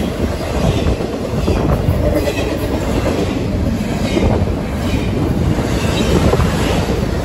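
Intermodal freight cars, double-stack container well cars and trailer flatcars, rolling past close at track speed: a loud, steady, deep noise of steel wheels on rail.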